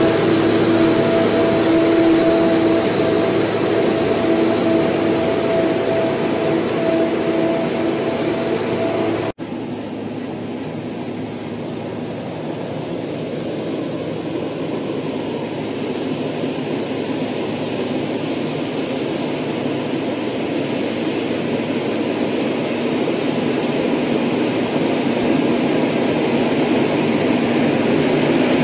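Multi-axle heavy-load transporter moving slowly, its engine giving a steady humming drone with a held tone over the rolling of its many tyres. About nine seconds in the sound cuts to a quieter drone that then grows steadily louder as the transporter approaches.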